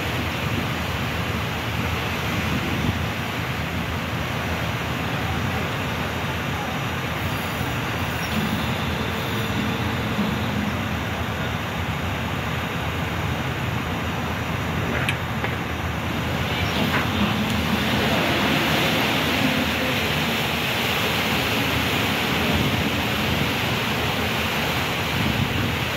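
SS Badger car ferry manoeuvring stern-first at its dock: a steady rumble with churning water from the propeller wash at the stern. It grows louder about two thirds of the way through.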